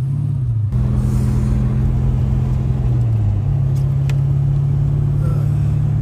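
Car engine under way, its note rising at the start and then holding steady, with a step to a new engine pitch about three seconds in.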